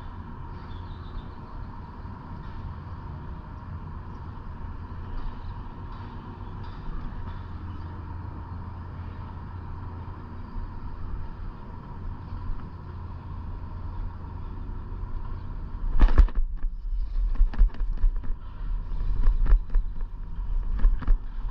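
A steady low hum, then about three-quarters of the way through a sudden sharp knock followed by a string of heavy low thumps: fishing gear jostling the microphone as a bass is hooked on a frog lure.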